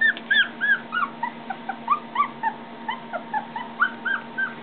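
Young puppy whimpering: a rapid run of short, high-pitched squeaks, about four to five a second.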